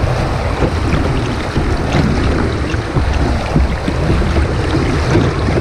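Steady rush of white water on an artificial whitewater course, with wind buffeting the microphone.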